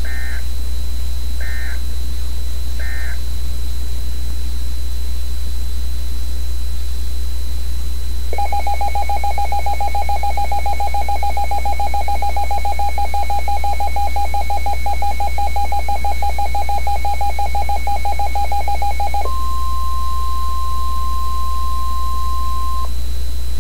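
Emergency Alert System tones. First come three short bursts of digital data tones about a second and a half apart, the end-of-message code for the warning just read. After a few seconds the two-tone EAS attention signal sounds with a beating warble for about eleven seconds. Then a single steady tone plays for about three and a half seconds and cuts off.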